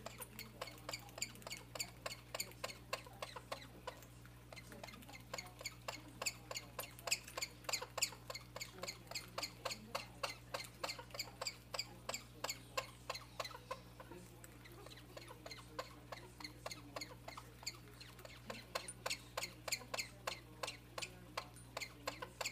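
A small pet making a repeated short, high squeak, about three a second, over a steady low hum; the squeaks thin out twice for a few seconds before picking up again.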